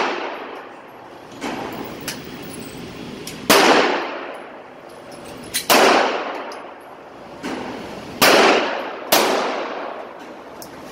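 Handgun shots fired one at a time, about two seconds apart, with softer shots in between. Each crack rings on in the echo of an enclosed indoor shooting range.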